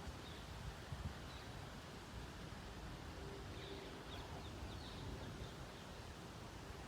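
Outdoor ambience: a steady low rumble and hiss, with a few faint, high bird chirps about halfway through.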